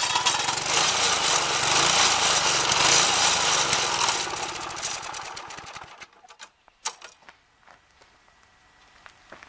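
Homemade stump grinder, an edger's 10-inch carbide-tipped saw blade driven by a Briggs & Stratton 4.5 hp vertical-shaft engine, grinding into a mulberry stump under load, the engine's pitch wavering. About four seconds in, the sound dies away over a couple of seconds as the engine winds down and stops, leaving a few light clicks.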